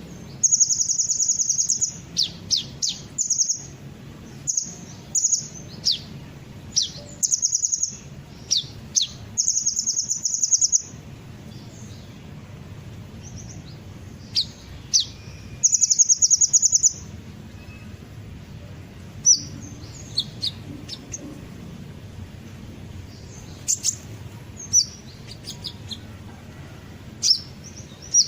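Sunbird song sold as 'kolibri ninja' lure calls: high, fast trills about a second long alternating with short, sharp downslurred chirps, coming thick in the first half and more scattered later. A faint low hum runs underneath.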